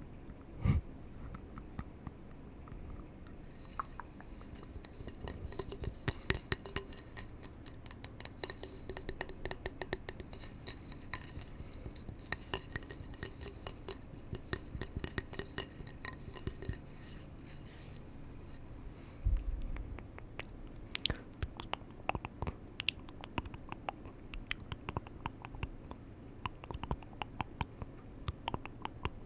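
Close-miked ASMR trigger sounds: quick tapping and scratching clicks on hard objects. For a long stretch in the middle the taps ring with a high, glassy tone, and a single dull thump comes about two-thirds of the way in.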